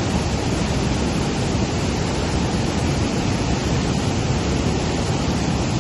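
Heavy waterfall: water pouring down in a steady, deep rush, without a break.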